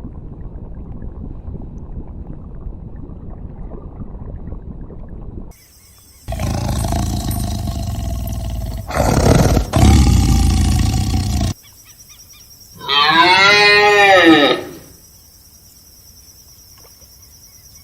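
A series of separately cut animal calls. A low, rumbling stretch comes first, then a loud, rough, noisy call lasting several seconds. Near the end comes one pitched call of about two seconds that rises and then falls in pitch.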